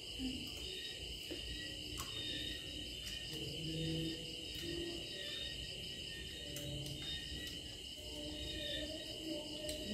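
Crickets trilling steadily in a high-pitched insect chorus, with a few faint clicks and scattered low hums underneath.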